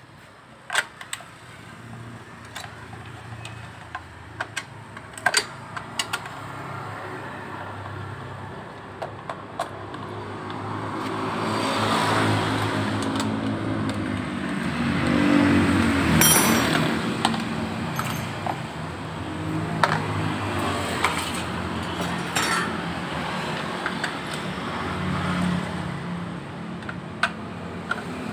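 Scattered sharp metal clicks and clinks of tools and loose parts being handled while scooter parts are unbolted. Underneath is a steady motor-vehicle engine hum that grows louder about ten seconds in.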